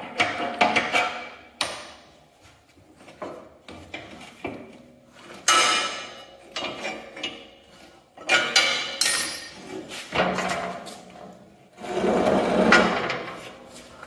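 Steel snow-blade push frame clanking and scraping in several separate bursts as it is worked into place on a garden tractor's front frame.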